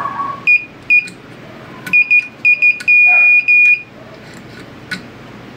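Digital multimeter's continuity buzzer beeping as the probes are touched across a circuit board's traces: several short, broken beeps, then a longer steady beep near the middle and one more after it, the meter signalling an unbroken connection.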